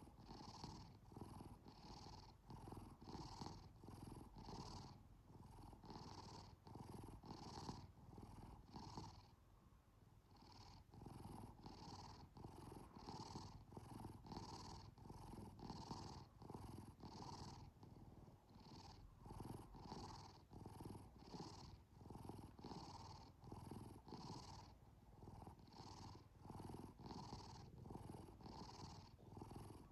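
A domestic cat purring steadily in soft rhythmic pulses, about three every two seconds, that go with its breathing. The purr dips for a moment about a third of the way in.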